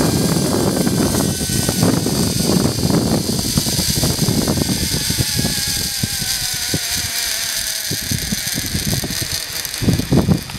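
Zipline trolley pulleys running along the steel cable with wind on the microphone; the whine falls steadily in pitch as the trolley slows. Rattling clicks grow louder near the end.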